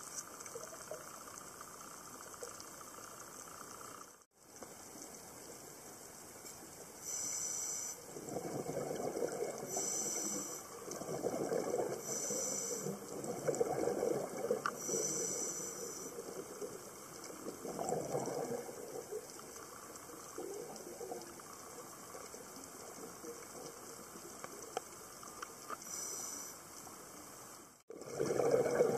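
A scuba diver breathing underwater, heard through the camera housing: short hisses from the regulator on each inhale alternate with longer rumbling gushes of exhaled bubbles, over several breaths, with fainter steady hiss before and after.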